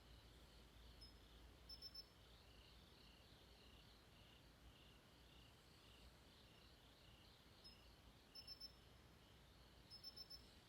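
Faint night chorus of crickets chirping in steady repeated pulses. Short runs of three or four quicker, higher-pitched chirps stand out once about two seconds in and twice near the end.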